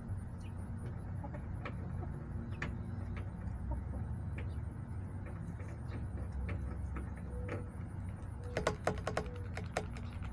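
Backyard hens clucking, with scattered short clicks and a quick run of sharp clucks near the end, over a steady low rumble.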